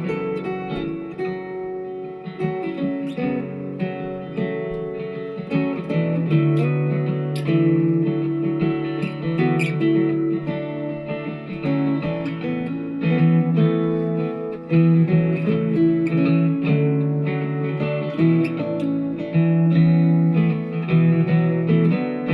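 Guitar played in chords, the notes ringing on with the harmony shifting every second or two.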